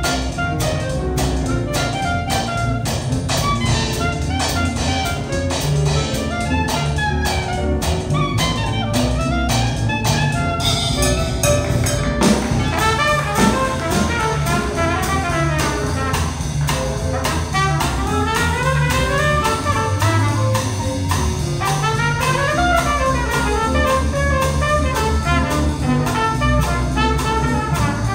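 Small traditional jazz band playing live, with the trumpet leading over drum kit, bass guitar and piano. Busy drumming carries the first half, then the trumpet plays running lines that climb and fall.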